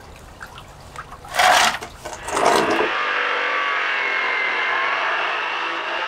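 Two loud knocks, then a corded circular saw cutting through an old wooden plank: a steady, loud cutting noise that lasts about three seconds and stops at the end.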